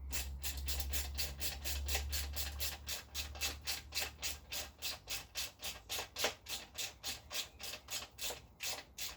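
Steady rhythmic squeaky clicking, about five clicks a second, from a motorcycle part being worked on by hand; a low hum sits under the first few seconds.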